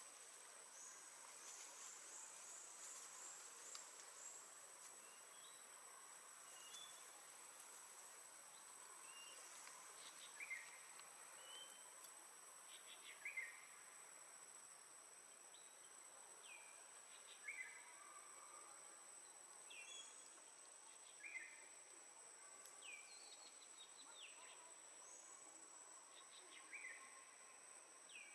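Faint outdoor ambience: a steady high-pitched insect drone, with a quick run of short high chirps about a second in and scattered short falling chirps every few seconds after that.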